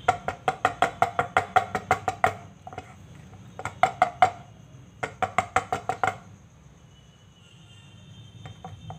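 Steel idli mould plate, its cups filled with batter, rapped repeatedly against a wooden board to settle the batter: quick sharp knocks with a slight metallic ring, about six a second. The knocks come in several runs and stop about six seconds in.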